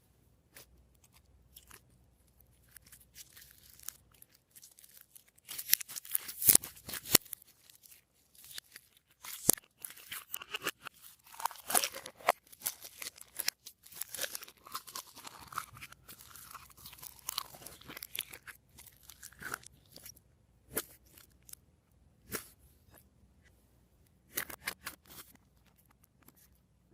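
Glossy slime being squeezed, pressed and stretched by hand, giving irregular sticky clicks and pops. These are densest and loudest from about five seconds in until about two-thirds through, then thin out to a few isolated pops.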